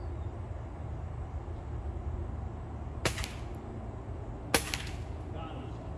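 .22 air rifle fired twice, two sharp cracks about a second and a half apart, the second louder, over a steady low outdoor rumble.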